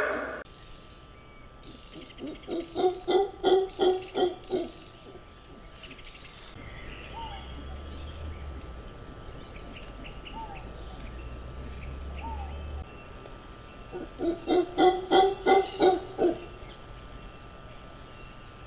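An animal's low hooting calls in two rhythmic bouts of about eight or nine hoots each, about four a second, the bouts roughly ten seconds apart.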